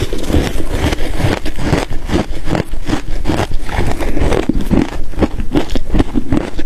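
Close-up crunching and chewing of ice cubes with matcha and milk powder: a dense run of irregular crisp crunches, several a second.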